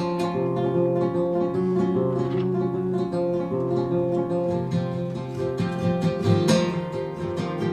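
Acoustic guitar being strummed and picked in a steady rhythm, chords ringing between vocal lines.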